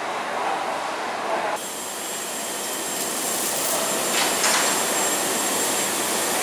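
Steady machinery noise in a locomotive repair workshop. It changes abruptly about a second and a half in, after which it carries a thin high whine and a short hissing burst about four seconds in.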